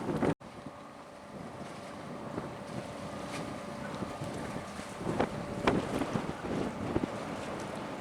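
A small passenger ferry's engine running steadily under wind noise on the microphone, with a few light knocks. A louder rush cuts off abruptly just under half a second in.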